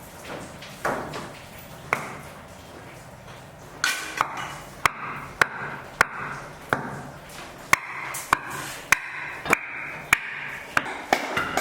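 Repeated hammer strikes with a metallic ring after each blow. There are a few scattered strikes at first, then a steady run of about one and a half blows a second from about four seconds in.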